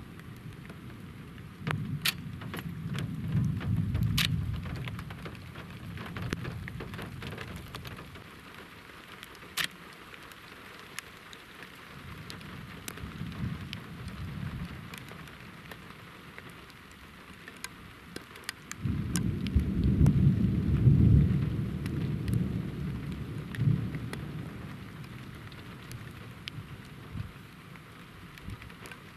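Steady rain with thunder rumbling: a rumble near the start that fades after a few seconds, a faint one about midway, and a heavier, longer rumble that breaks in suddenly about two-thirds through and dies away slowly. A few sharp ticks stand out above the rain.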